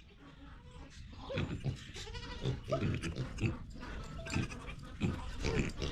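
Farm livestock calling: a series of short pitched calls, some bending up and down in pitch, mixed with a few light knocks.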